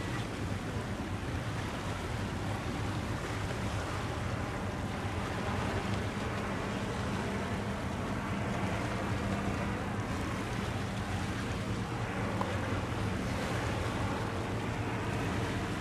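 A vessel's engine droning steadily at a low pitch under a constant wash of wind and water noise.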